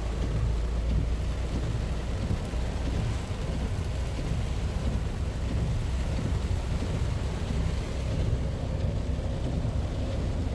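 Heavy rain falling steadily, as a continuous hiss over a constant low rumble.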